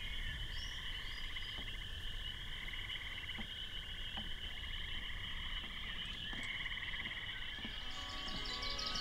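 A steady chorus of frogs trilling in rapid pulses. Soft chime-like music comes in near the end.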